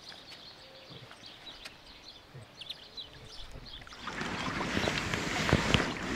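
Quiet at first. About four seconds in, the sound of shallow stream water rushing close by comes up suddenly, with a few sharp splashes or knocks in it.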